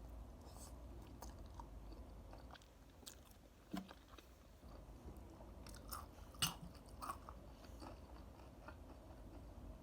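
Faint, close-up chewing and mouth sounds of someone eating a mouthful of noodles, with a few short, sharper clicks, the loudest about three and a half and six and a half seconds in.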